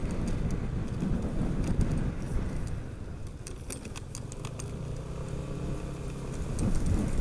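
Yamaha NMAX scooter's engine running while riding, under a steady low rumble, with scattered light rattles and clicks.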